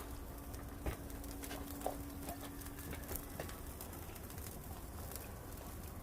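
Firewood fire crackling under grilling mackerel: scattered sharp pops and ticks, with a faint steady hum in the first half.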